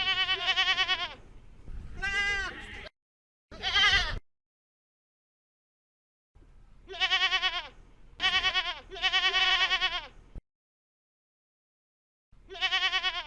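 Goats bleating: a string of about seven quavering bleats, some short and some drawn out, with stretches of dead silence between them.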